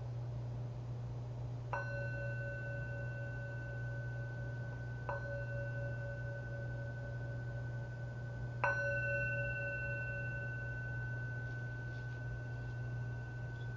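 Meditation bell struck three times, a few seconds apart, each strike ringing on in a long, steady, pure tone; the third strike is the loudest and rings longest. The bell marks the close of the silent sitting. A steady low hum runs underneath.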